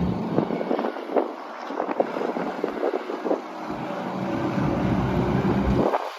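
New Holland LB75B backhoe loader's diesel engine running, with wind buffeting the microphone in gusts and short clattery clicks over it.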